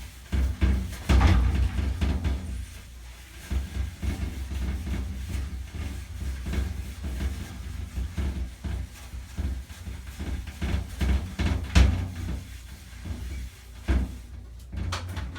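Electric polishing machine buffing shower door glass with a soft pad and cerium oxide compound, an uneven low rumble broken by irregular knocks and bumps.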